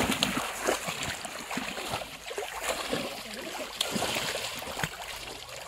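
Shallow water in a flooded rice paddy splashing and sloshing irregularly as legs wade through it and hands grope under the surface.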